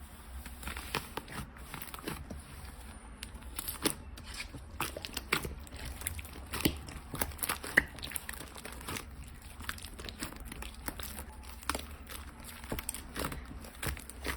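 Slime being squeezed and pressed by hand close to the microphone, making irregular crackling clicks and pops.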